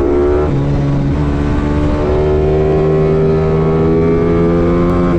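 Small racing motorcycle's engine running hard at high revs under way. Its pitch dips briefly about half a second in, then climbs slowly.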